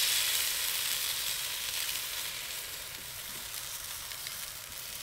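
Takoyaki batter sizzling as it is poured into the hot, oiled wells of a takoyaki pan. The sizzle is loudest at the start and fades gradually as the pan fills.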